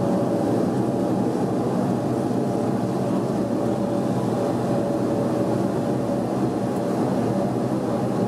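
Bombardier Dash 8-400's turboprop engines and propellers heard from inside the cabin at low power while the airliner taxis: a steady, even drone with a faint steady hum above it.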